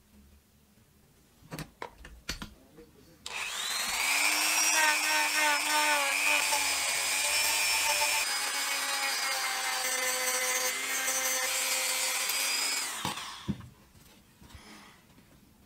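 Handheld rotary tool with a sanding drum spinning up about three seconds in, sanding a wooden pistol grip with a steady high whine and rasp, then winding down near the end. A few light clicks come before it starts.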